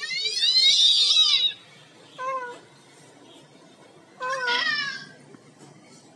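Recorded cat meows playing from a phone's speaker: a loud, high-pitched drawn-out meow, then a short meow about two seconds in and another longer one about four seconds in.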